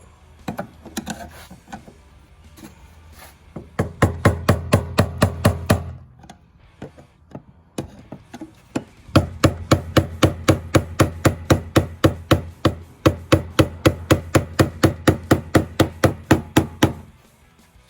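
Rapid, evenly spaced taps on a flathead screwdriver, about four to five a second, driving the fuel pump's plastic locking ring around to lock the pump into the tank. A short run comes about four seconds in and a longer run from about nine seconds to near the end.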